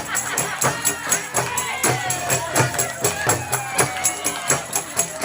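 Qasidah music: a voice singing a long, ornamented melody that slides up and down, over a steady beat of hand-struck frame drums, about three strokes a second.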